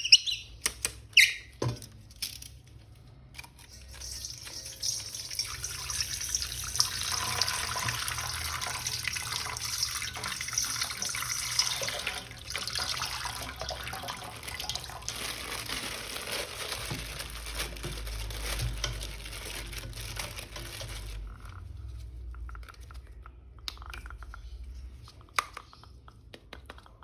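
Water running from a tap in a steady hiss for about seventeen seconds, stopping about 21 seconds in. A few sharp handling clicks come before it starts, and fainter ones after it stops.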